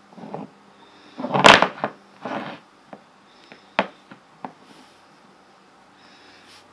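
A phone in its case knocked and set down on a wooden tabletop: a few knocks and scrapes, the loudest a thump about a second and a half in, then a couple of sharp clicks near the middle.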